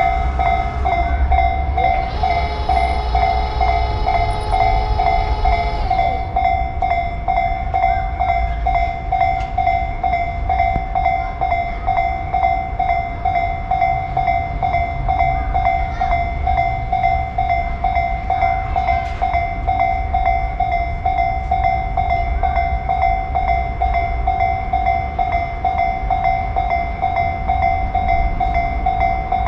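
Japanese railroad crossing's warning bell ringing in a fast, even repeating pattern over the low rumble of a passing train. A train horn blows for about four seconds near the start, its pitch dropping as it stops.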